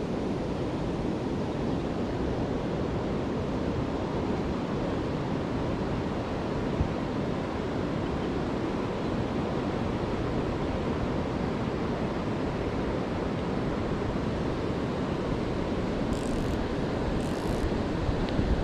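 Steady rush of fast-flowing river water below a dam, with one short click about seven seconds in.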